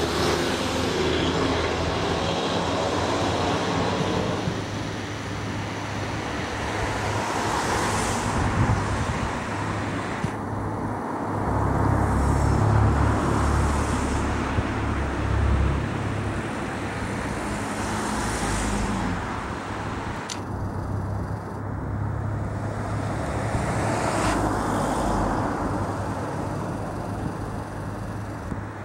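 Road traffic: vehicles passing one after another, each swelling and fading over a steady background hum, with a heavier low engine rumble about 11 to 16 seconds in.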